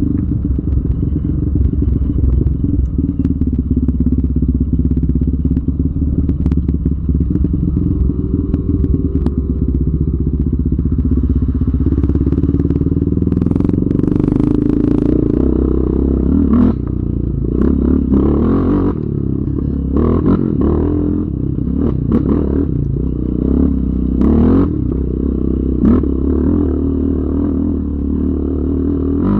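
Yamaha Raptor 700R's single-cylinder four-stroke engine running as the quad is ridden. It holds steady for the first half, then the revs rise and fall from about twelve seconds in, with short knocks and rattles throughout the second half.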